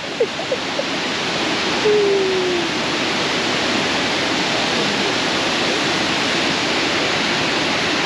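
Kravica waterfall's cascades of falling water rushing steadily. About two seconds in there is one short falling tone.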